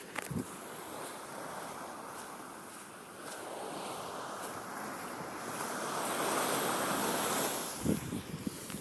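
Ocean surf washing in at the shoreline, swelling to its loudest about six to seven seconds in as a wave breaks and rushes up, with wind on the microphone. A few short low thumps just after the start and again near the end.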